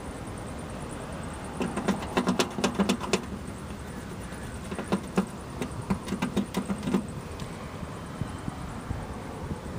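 A fingertip rubbing and scraping over a scuffed door sill trim, in two spells of rapid, chattering scrapes, over a steady background hiss.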